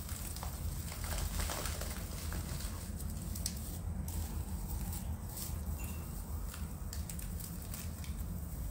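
Loose potting soil and fibrous roots rustling and crumbling as hands pull apart a bonsai root ball, with soft patters of soil dropping onto a sack, over a steady low rumble.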